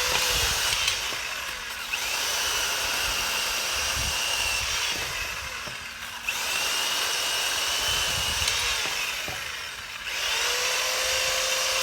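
Black & Decker Alligator electric lopper running, its small chain cutting through wood with a steady high whine that sags and recovers about every four seconds as the load changes.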